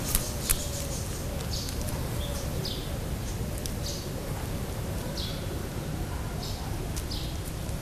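A small bird chirping again and again, short falling chirps about once a second, over a steady low outdoor rumble, with a few faint clicks.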